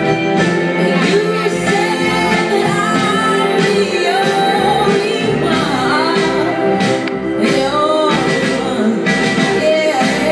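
Dance music with a sung vocal line over a steady beat, played loud.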